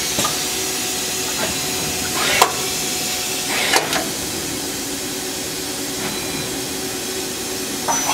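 Tsugami S25 CNC Swiss-type lathe running its loop program with its tools turning at 3,000 rpm: a steady whir and hiss, broken by about four sharp clacks as the machine indexes and its slides move, the loudest about two and a half seconds in. Right at the end a high whine sets in.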